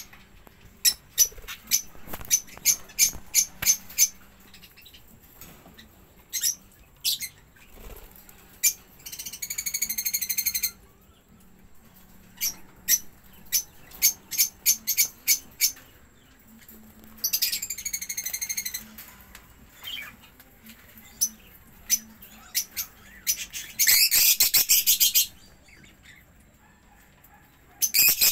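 Caged budgerigars calling: a run of short, sharp chirps, broken three times by longer calls of about a second and a half each, roughly a third of the way in, past halfway and near the end.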